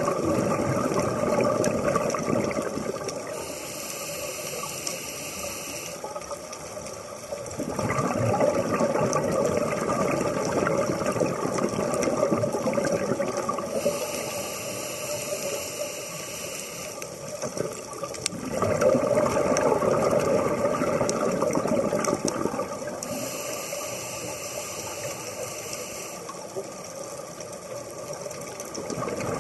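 Scuba diver breathing through a regulator underwater: a hissing inhale, then a long gurgling rush of exhaled bubbles, in a slow cycle of about ten seconds that repeats three times.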